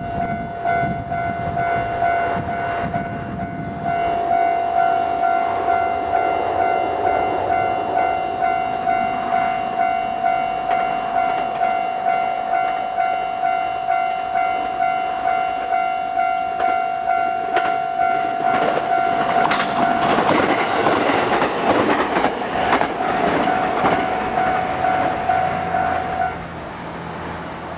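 Japanese level-crossing alarm ringing with a steady, repeating electronic ding about one and a half times a second. About two-thirds of the way through, a JR West 223 series 5500 electric train passes over the crossing, and its wheels clatter over the rail joints; this is the loudest part. The alarm stops shortly before the end.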